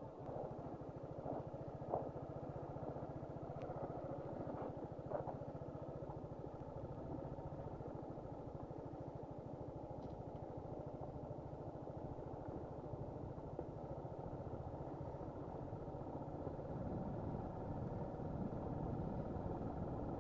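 Suzuki Gixxer SF 155's single-cylinder engine running steadily under way, with a few sharp clicks or knocks in the first few seconds; the engine note changes and grows louder near the end.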